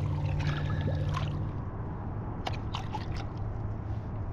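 Water sloshing and dripping at the boat's side as a big snook is eased back into the water and released, with a few short sharp splashes and drips. A steady low hum runs underneath.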